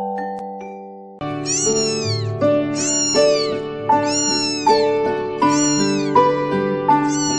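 A very young kitten mewing over and over in high, thin cries, each rising and then falling, starting about a second in. Background music plays throughout.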